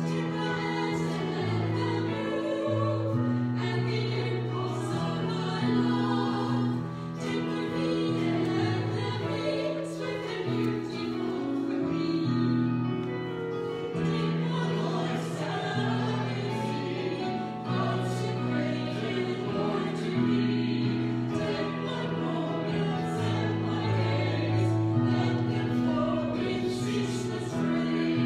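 Small group of four singers singing a hymn in parts, over steady held chords that change every second or two.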